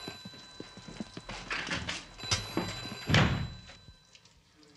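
A run of clattering knocks, with a heavy thump about three seconds in, then quieter.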